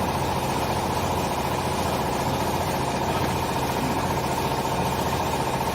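Hydraulic baling press for used clothing, its motor and hydraulic pump running with a steady, even hum.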